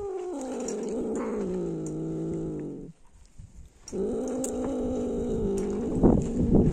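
A cat giving two long, low, drawn-out yowls, the first sinking slowly in pitch, the second starting after a short pause. A few close knocks sound near the end.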